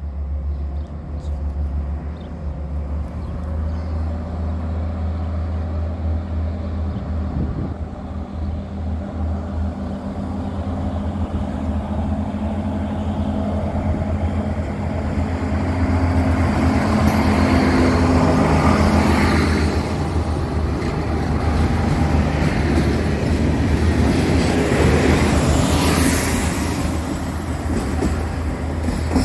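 Ex-SNCF X 72500 diesel multiple unit approaching and passing: its diesel engines run with a steady low hum that grows louder. Wheel and rail noise peaks about two-thirds of the way through as the cars go by, and swells once more near the end.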